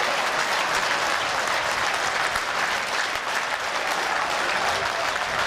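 Football crowd applauding, many hands clapping steadily.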